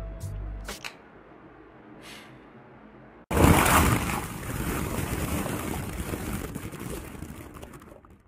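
A sudden loud rushing sound effect, like a mass of small balls pouring and tumbling, starts about three seconds in and gradually fades out near the end. Before it there is only a brief held tone and a few faint clicks.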